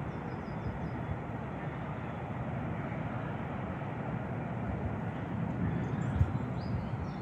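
Steady low rumble of outdoor background noise, with a few faint, short high chirps near the start and again about six seconds in.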